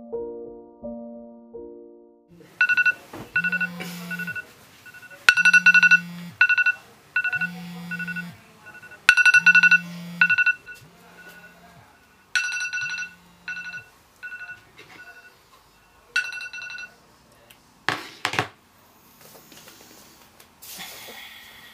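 An iPhone alarm goes off: quick bursts of high electronic beeps, while the phone buzzes against the hard surface under it in pulses about a second long. The alarm stops a little after halfway. A thump follows, then rustling near the end. Soft piano music fades out in the first two seconds.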